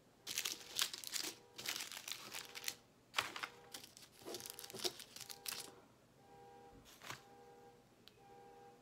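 Small plastic bags of diamond painting drills crinkling as they are handled, in a run of bursts through the first five seconds or so. A single click follows about seven seconds in.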